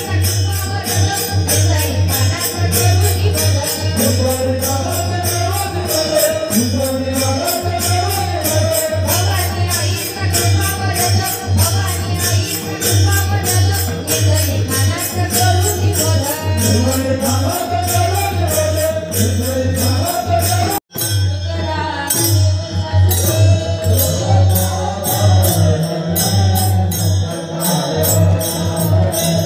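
Devotional group singing amplified through a live PA system, over a fast, steady jingling beat of tambourine-like percussion and a heavy low bass. About two-thirds of the way through the sound cuts out for an instant, and the jingling drops away for a couple of seconds before resuming.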